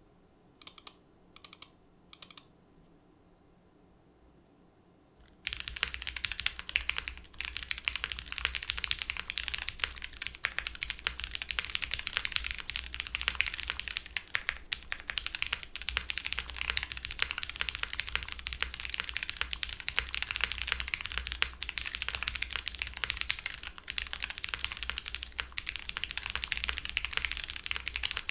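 Typing on an Owlab Mr. Suit mechanical keyboard with lubed Cherry MX Brown Hyperglide switches, a polycarbonate plate, plate and case foam, and GMK keycaps. Three single clicks come in the first couple of seconds, then a few seconds in, fast continuous typing starts, a dense run of keystroke clacks that keeps on without a break.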